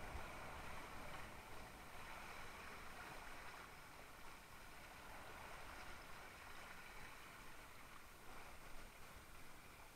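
Steady rush and splash of water along the hull of a Mistral Superlight windsurf board sailing through light chop.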